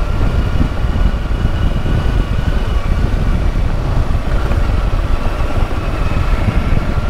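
Kawasaki Versys-X 300's parallel-twin engine running steadily while the motorcycle is ridden along a dirt track, under heavy wind rumble on the microphone.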